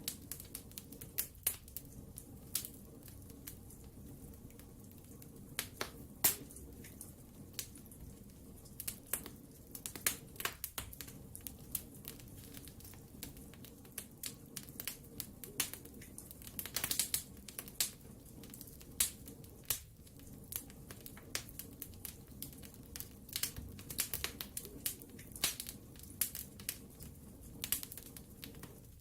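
Wood fire burning in a fireplace: frequent sharp, irregular crackles and pops over a low, steady rumble of the flames.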